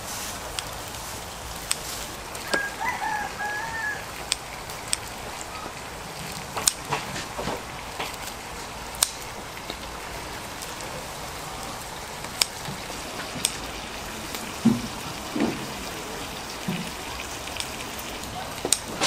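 A rooster crowing once, about two and a half seconds in, over a steady background hiss with scattered sharp clicks and knocks.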